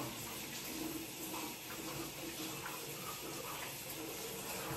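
Kitchen tap running steadily into a sink, cut off right at the end.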